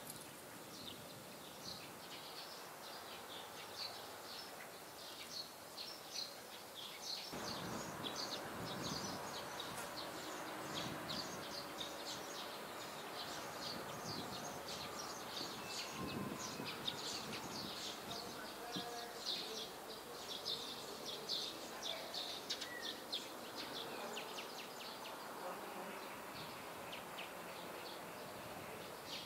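Outdoor ambience full of rapid, high-pitched chirping that never stops. About seven seconds in, a fainter wash of low background murmur joins it.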